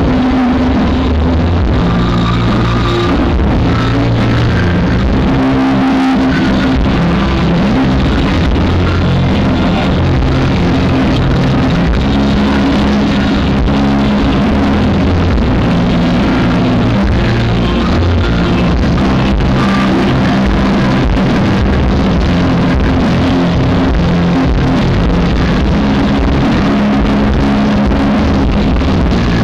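Live rock band with electric guitar playing loudly through a concert sound system, recorded on a camera microphone that distorts it badly; the uploader believes the microphone is broken.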